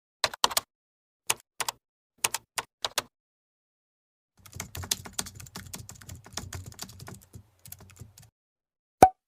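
Computer keyboard sound effect: a few single keystrokes, then a run of rapid typing lasting about four seconds. A single sharp click with a short ring comes near the end.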